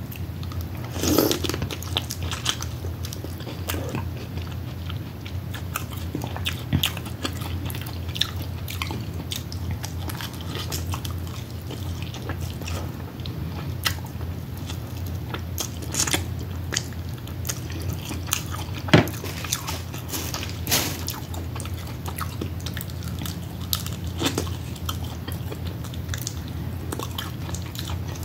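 Close-miked biting and chewing of crab: irregular sharp clicks and mouth sounds, the loudest about a second in and again near the two-thirds mark, over a steady low hum.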